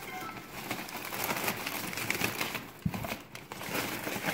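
Newspaper and plastic wrappers rustling and crinkling as hands rummage through a cardboard box of trash, with a dull knock about three seconds in.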